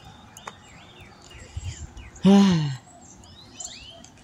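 Small birds chirping in the trees, a string of short high falling chirps. About two seconds in comes one loud, short man's vocal sound, falling in pitch like a sigh or groan.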